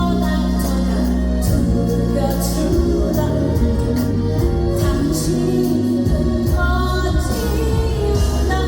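A woman singing a Korean trot song live over a loud backing track with a steady beat and heavy bass.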